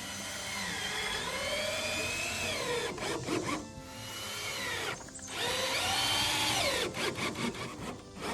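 Power drill running in two long pulls, its motor pitch sagging and recovering under load as it drives into wood, with a few sharp clicks between the runs.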